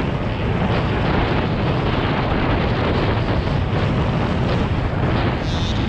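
Dirt bike ridden at speed on a motocross track, heard from a helmet camera: a steady rush of wind over the microphone covers the engine running underneath.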